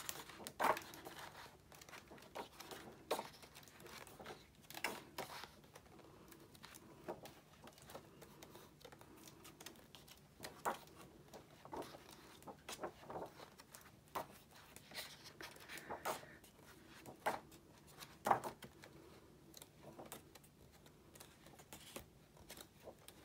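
Pages of a book being turned one after another: quiet, irregular paper rustles and flicks.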